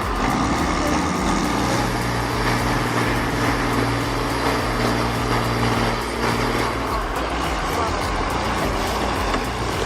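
Large vehicle or machine engine running steadily, a low hum that holds its pitch for several seconds.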